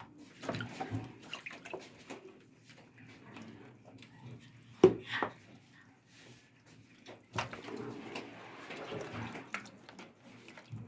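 Hands working raw meat through a wet chermoula marinade in a plastic basin: irregular wet squelching and sloshing as the pieces are rubbed and turned, with one sharper, louder hit about five seconds in.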